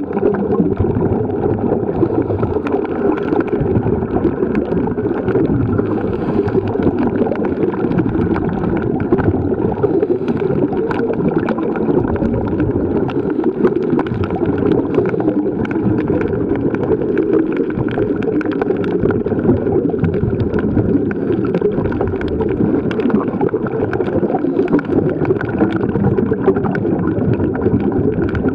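Underwater ambience from a submerged camera: a steady, muffled wash of moving water with faint scattered clicks.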